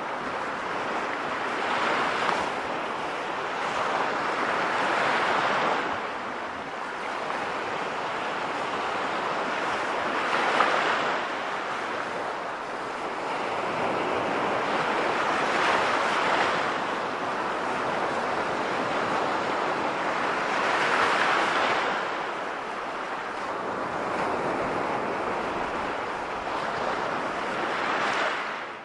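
Recorded sea waves washing onto a shore, each swell rising and ebbing about every five seconds, fading out at the end.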